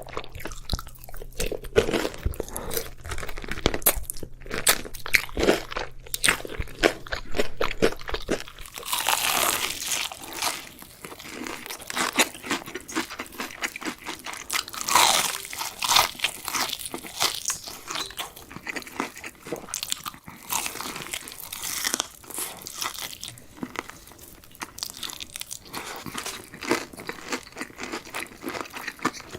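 Crisp fried chicken being bitten and chewed, a dense run of sharp crunches. A faint low hum underneath stops about eight seconds in.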